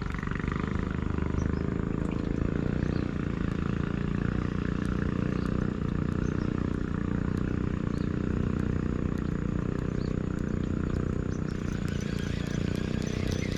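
Small engine running steadily, a constant low drone with no change in speed.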